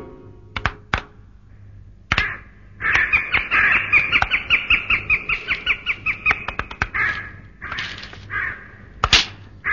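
Cartoon sound effect of a harsh, crow-like cackling call, about five rapid pulses a second for some four seconds. A few sharp clicks come before it, and shorter calls follow near the end.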